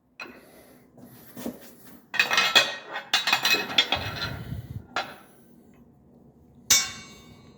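Steel parts of the bearing puller and the freed wheel hub clanking and rattling together as they are handled on the hydraulic press, with a long stretch of clatter in the middle and one sharp clank near the end.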